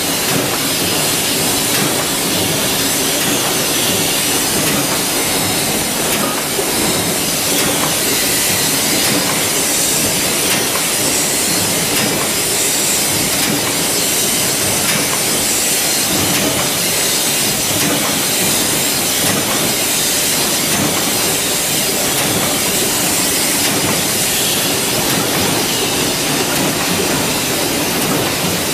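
Factory machinery making hinges, including metal-stamping presses, running together as a loud, steady din of metallic clatter and hiss.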